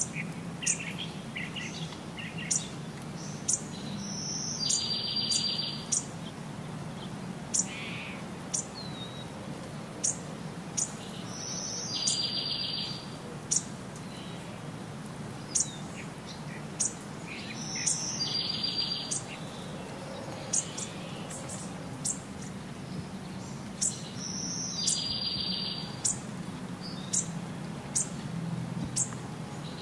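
Songbirds singing: one bird repeats a short song, a high note followed by about a second of fast trill, every six or seven seconds, with short sharp high chirps in between, over a low steady rumble.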